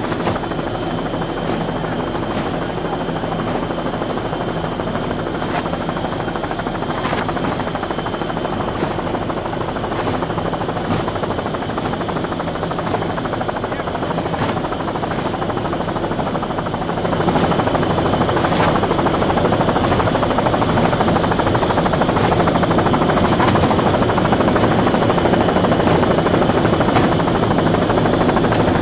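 Helicopter engine and rotor noise, a steady drone that grows louder about seventeen seconds in.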